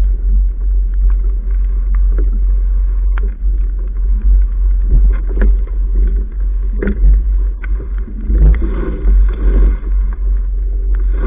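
Wind buffeting the microphone, a loud, gusting low rumble, with scattered sharp knocks and clicks from the boat and its rigging.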